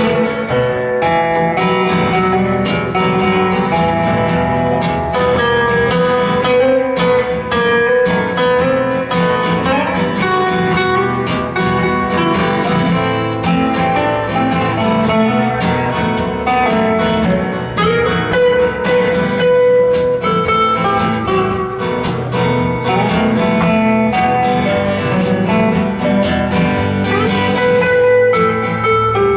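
Live band music: a guitar-led instrumental break in a song, with no singing.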